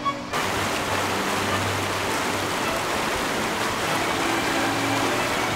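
Steady rush of a fast, shallow mountain river running over rocks. It cuts in abruptly just after the start.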